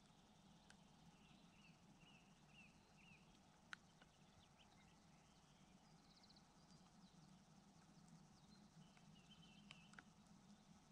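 Near silence: outdoor quiet with faint scattered animal chirps, a few sharp clicks and a low steady hum.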